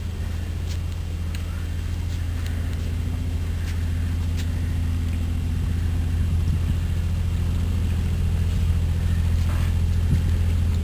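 Boat engine running with a steady low hum, growing slowly louder, then dropping abruptly near the end.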